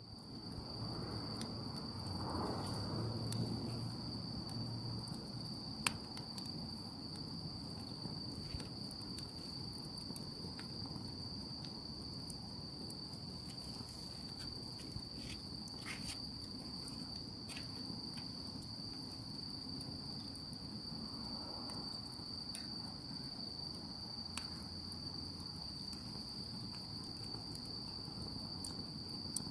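Night insects calling, led by one steady, unbroken high trill, with a few faint clicks scattered through it.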